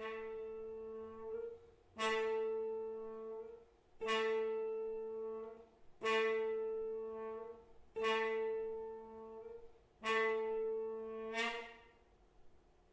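Muted trombone and electric guitar playing one held note in unison, repeated six times about two seconds apart. Each note lasts about a second and a half, starts loud, fades, then swells briefly just before it cuts off.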